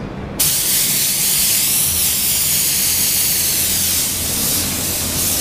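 Automotive paint spray gun hissing steadily with the trigger held, the hiss starting about half a second in, over a low steady hum.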